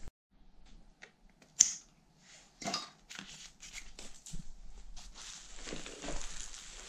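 Scissors snipping ties and bubble wrap off a new mountain bike, with the plastic wrapping rustling and crinkling in irregular patches as it is pulled away. One sharp click about a second and a half in is the loudest sound.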